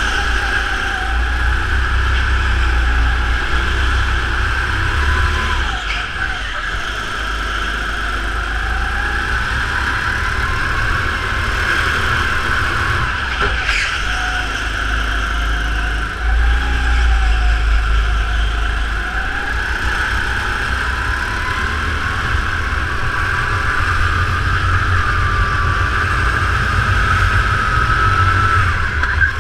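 Onboard sound of a go-kart running at race pace. Its pitch rises and falls with speed, climbing along the straight near the end and dropping sharply as it slows, over a steady low rumble. There is a single sharp knock about 14 seconds in.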